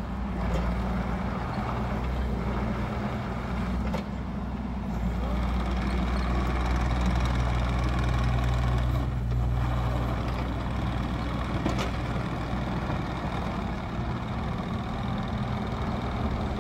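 Wacker Neuson EZ38 mini excavator's 1.6 L three-cylinder diesel running steadily as the machine drives on its rubber tracks and turns, working harder for a few seconds in the middle. A few sharp metallic clanks sound from the machine along the way.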